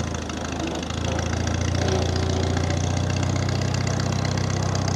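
1950 Farmall Cub's four-cylinder flathead engine running steadily as the tractor moves off in first gear. The sound dips slightly in the first second, then holds steady.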